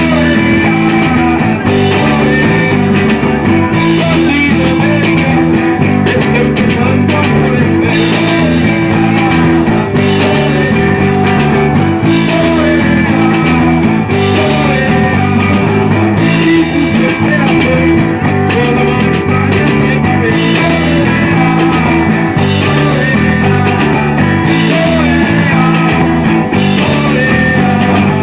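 Live street band playing rock music through small amplifiers: strummed guitars over a drum kit, with a walking pattern of low notes underneath.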